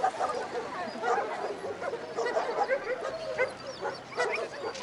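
Many dogs barking and yelping together, a constant overlapping chorus of short calls.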